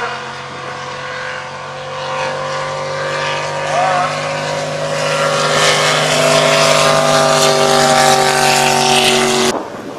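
Drag boat's supercharged engine running at a steady note as the boat passes, growing louder, then cutting off abruptly near the end.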